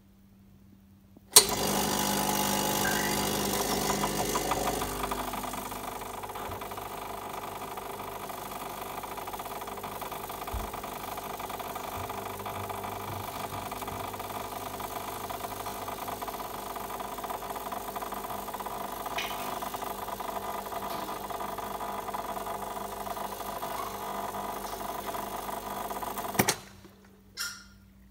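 Brasilia Lady espresso machine's vibratory pump buzzing through a double ristretto shot with no over-pressure valve. It starts about a second in, is loudest for the first few seconds, then settles into a quieter, steady hum as pressure builds against the coffee puck. It cuts off with a click near the end, followed by a couple of small knocks.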